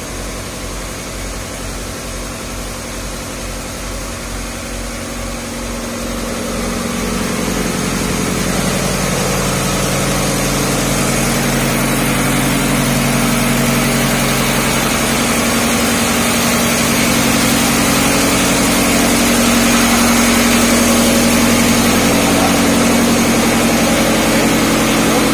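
Diesel machinery in a tugboat's engine room running with a steady, even drone, growing louder over several seconds about a third of the way in, then holding.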